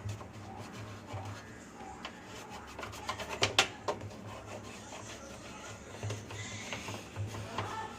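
Rubbing and scrubbing against the inside of a washing machine drum, with a few sharp clicks about three and a half seconds in.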